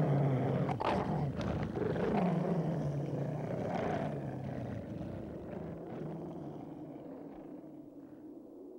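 A monstrous beast's growling roars, several in a row, each sliding down in pitch, dying away over the following seconds.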